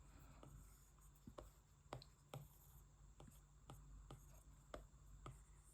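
Faint, irregular clicks of a stylus tapping and stroking on a tablet's glass screen during digital painting, roughly two a second, over a low steady hum.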